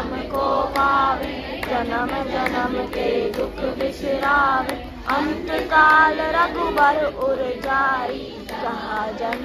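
A crowd of voices, women and children among them, singing a devotional song together, with rhythmic hand-clapping keeping time.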